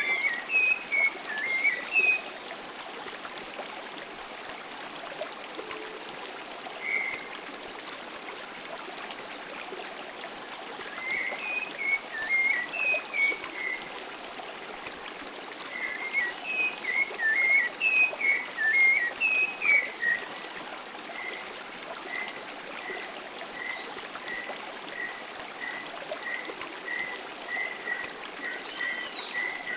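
Wild forest birds singing over a steady background hiss: warbling phrases come and go, a few thin high calls are mixed in, and about two-thirds in one bird settles into a run of evenly spaced single notes, about one and a half a second.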